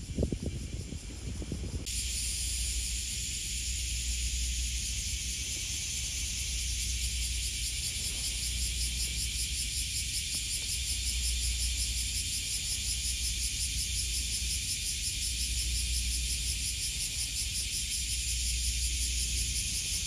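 A chorus of summer cicadas droning steadily, a dense high-pitched buzz that jumps louder about two seconds in. A low, uneven rumble runs underneath.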